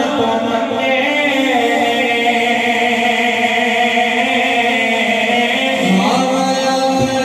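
Male voices singing a naat, a devotional Urdu poem in praise of the Prophet, unaccompanied, in long drawn-out held notes; a second singer's voice comes in about six seconds in.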